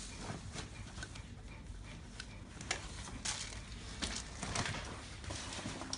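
Irregular clicks, knocks and rustles of a Sweet Cherry SCR13 baby stroller being handled: its seat strap and frame fittings worked by hand, then the stroller shifted about on its wheels.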